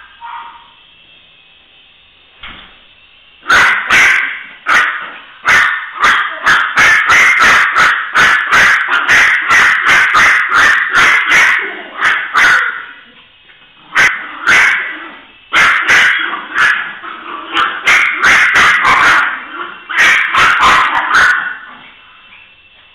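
Small dog barking loudly in fast volleys, about two or three barks a second. The barking starts a few seconds in, breaks off briefly about halfway and stops near the end.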